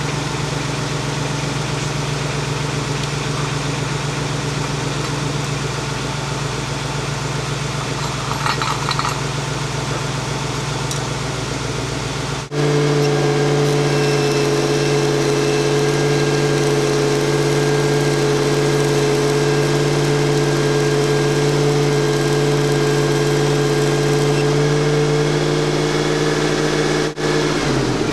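Car engine running steadily while its alternator is used as a stick welder's power supply, under the hiss and crackle of the welding arc. About halfway through, after a brief break, the engine runs louder at steady raised revs to feed the weld, then its pitch falls away at the very end.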